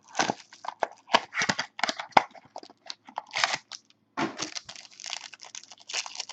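A trading card pack wrapper being torn open and crinkled by hand: a string of irregular crackles and rustles.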